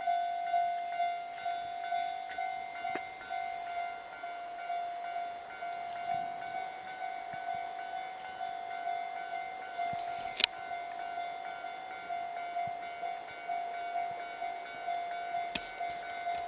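Japanese railway level-crossing warning bell ringing steadily, an electronic ding repeating about twice a second, which warns that a train is approaching. A single sharp click sounds about ten seconds in.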